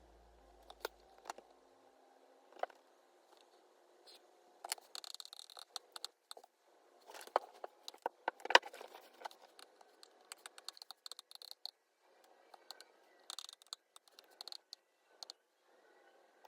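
Quiet, irregular desk-top handling sounds: light taps, scratches and rustles, with a sharper click about eight and a half seconds in.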